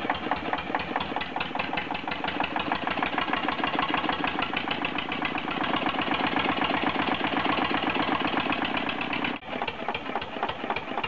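1963 Marna M2 two-cylinder marine diesel engine running steadily at idle, with a quick, even knock of its firing strokes. A short drop in level comes about nine seconds in. By now the engine is judged to be running fine.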